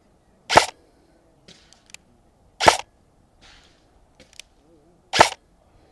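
Arcturus AT-AK12 airsoft electric rifle firing single shots: three sharp shots about two and a half seconds apart, each the gearbox cycling and releasing the piston.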